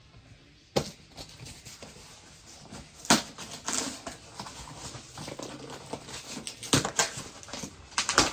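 A package being opened by hand: rustling and scraping of packaging, broken by sharp clicks and snaps four or five times.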